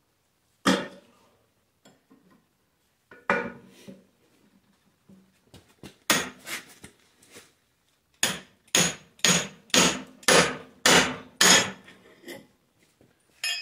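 Hammer blows on the steel steering arm of a Ford 8N tractor to knock a tie rod end loose. A couple of single blows come first, then a few more, then an even run of about ten blows, roughly two a second.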